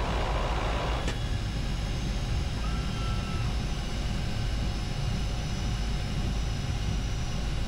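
Steady cockpit drone of a DHC-6 Twin Otter's two PT6A turboprop engines and propellers at low power during the landing rollout: a low rumble with a faint steady whine over it. A click about a second in, and a brief faint beep around three seconds.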